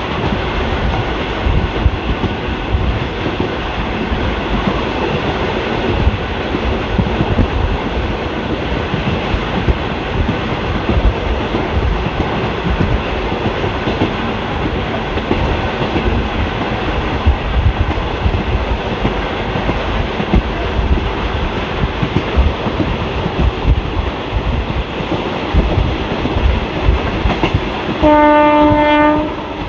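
Passenger train with ICF coaches running at speed: a steady rumble with the wheels clacking over the rail joints. Near the end a train horn sounds one steady blast of about a second and a half.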